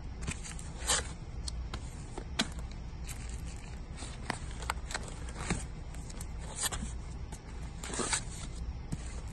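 Vinyl LP records in plastic outer sleeves being flipped through by hand: a run of short, irregular swishes and clicks as sleeves rub and slap against each other, over a steady low hum.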